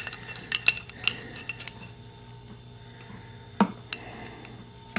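Light metallic clinks and taps as tools and the old faucet's brass parts are handled, several in quick succession in the first second and a half, then a single duller knock later on.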